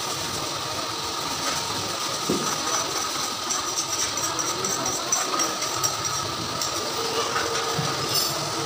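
Steady mechanical hiss and hum, with faint light ticking in the middle.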